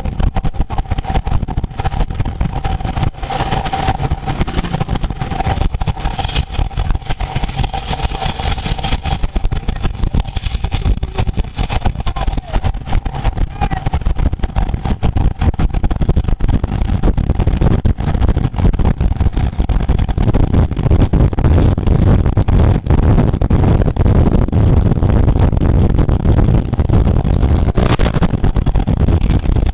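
Wind buffeting the microphone of a camera riding along in a road bike race, a dense, fluttering rumble that grows stronger in the second half, with a steady whine through roughly the first twelve seconds.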